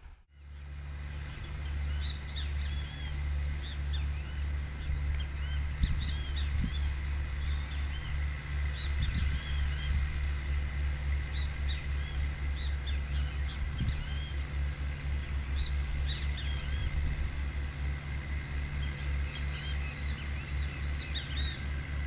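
Massey Ferguson 4299 tractor's diesel engine running under load, a low, evenly pulsing drone, as it pulls an offset disc harrow. Birds chirp throughout above it.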